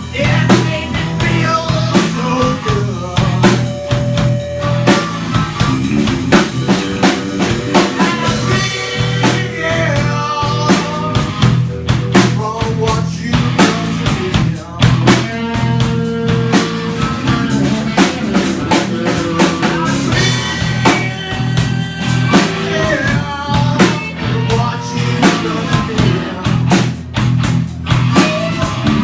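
Live band playing: a drum kit keeps a steady beat with rimshots under guitar lines and a sustained low bass part.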